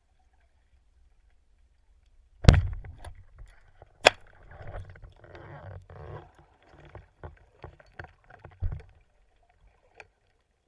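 Water noise with sharp knocks and clicks on an underwater camera: a loud knock about two and a half seconds in, another sharp click a second and a half later, then stretches of bubbling and scattered small clicks and a thump near the end.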